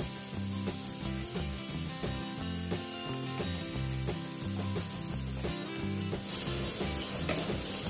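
Sliced onions and green chillies sizzling in hot oil in a nonstick pot while a wooden spatula stirs them, scraping and knocking against the pan. The sizzle grows louder about six seconds in.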